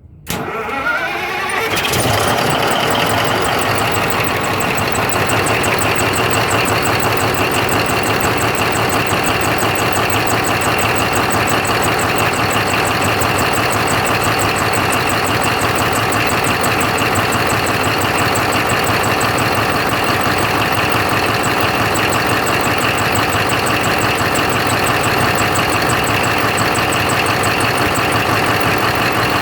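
Caterpillar 3508 V8 diesel engine of a 777 dump truck coming in sharply, rising in pitch for about two seconds, then running steadily with a fast ticking on top, a strange noise put down to a rocker arm.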